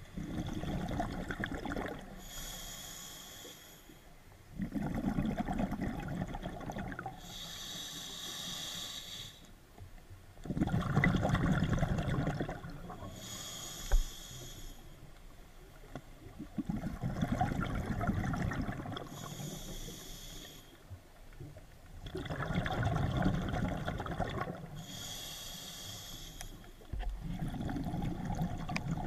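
A scuba diver breathing through a regulator underwater, steady and unhurried, with about five breaths. Each breath is a low gurgling rush and then a higher hiss. A single sharp click comes about halfway through.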